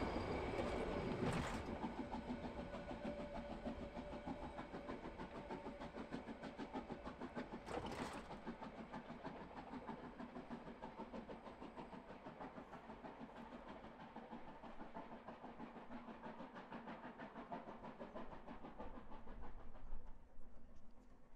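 A narrow-gauge train hauled by a Harz Class 99.23–24 2-10-2T steam locomotive pulling away into the distance. A fast, even rhythmic beat fades steadily as it goes.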